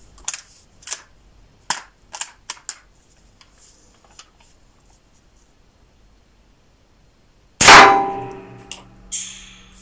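Pallas BA-15 .22LR manually cycled rifle: a handful of metallic clicks as its action is worked, then, about three-quarters of the way in, a single loud gunshot with a ringing echo that dies away over about two seconds.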